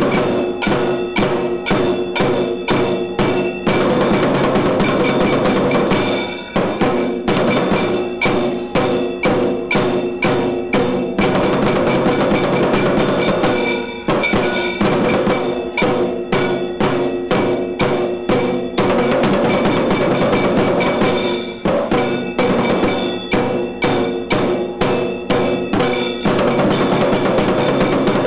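Tiru Kailaya Vadya, a Tamil temple percussion ensemble, playing a fast, driving beat of rapid strokes. Every few seconds the strokes give way to stretches where steady held tones ring out over the rhythm.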